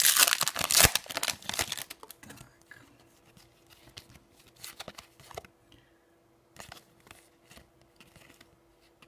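A foil trading-card packet is torn open with loud crinkling and ripping for about two seconds. Then the cards slide and click softly as they are pulled out and flicked through.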